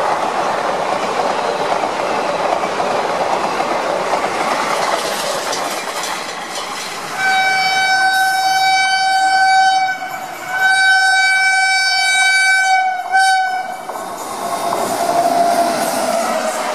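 Train running with a steady rumble and clatter. About seven seconds in, its horn sounds three times on one steady note: two long blasts and a short one.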